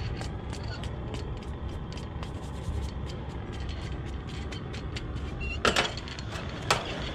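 Wire brush scrubbing the copper tip of a gas-fired soldering iron: short scratchy strokes about three times a second over a steady low rumble. A few sharper knocks come near the end.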